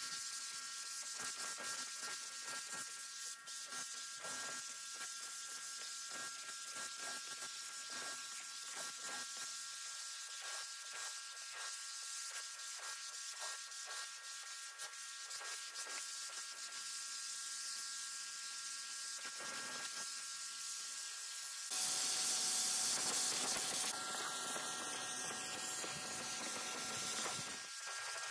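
Pressure-washer jet hissing as it sprays onto a wet, soapy rug, with the scrape of a stiff scrubbing brush working the pile. The spray gets louder for about two seconds near the end.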